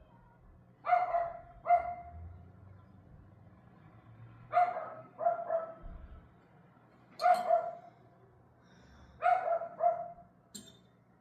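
A dog barking in short barks that come mostly in pairs, about four groups a couple of seconds apart.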